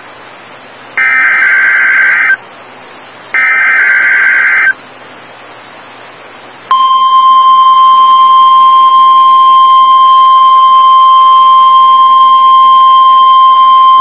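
Emergency Alert System SAME header: two buzzy digital data bursts, each about a second and a half long with a second's gap between them. About seven seconds in, the steady single-pitch 1050 Hz NOAA Weather Radio warning alarm tone starts and holds. Together they open a weather warning broadcast, here an ice storm warning.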